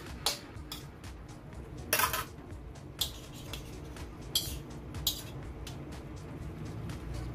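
A metal spatula and ladle scraping and clinking against a metal wok while stirring a braise of ribs, beancurd sticks and mushrooms in sauce. There are several sharp clinks, the longest scrape about two seconds in.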